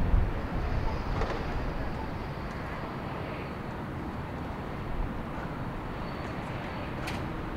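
Airbus A220 airliner's turbofan engines running as it rolls along the runway: a steady rumble and rush that fades over the first couple of seconds, then holds at a lower level.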